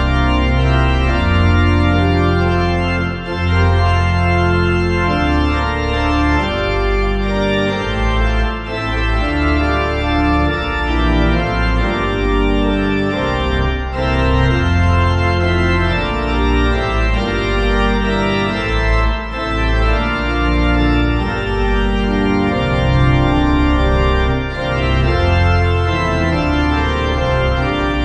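Organ playing slow, sustained chords over a deep bass line, the chords changing every second or two.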